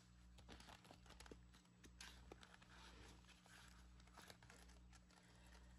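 Faint rustling, crinkling and small clicks of a clear plastic binder pouch and paper bills being handled, over a low steady hum.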